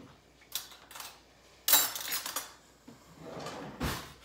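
Kitchen handling noises: a few light clicks and knocks, a louder rattling scrape near the middle, and a dull thump near the end as containers and utensils are moved about on a counter.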